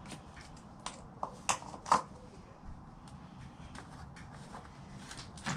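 Scattered light clicks and taps of hands handling things at a small engine while it is being filled with oil, the sharpest about two seconds in and another near the end.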